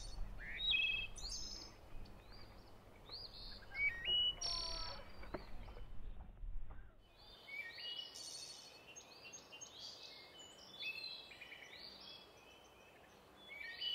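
Small songbirds chirping and singing, many short high chirps with quick rising and falling notes, over a low outdoor rumble that drops away about halfway through.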